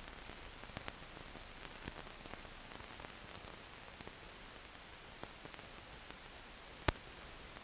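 Steady faint hiss with scattered small clicks and a single sharper pop about seven seconds in: the background noise of a newsreel film transfer that has no soundtrack.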